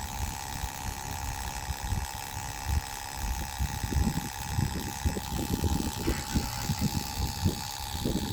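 Thick 75W-90 GL5 gear oil being pumped into a differential's filler hole during a refill that is nearly full. Over a steady background hum, repeated pumping strokes come in from about halfway, two to three a second.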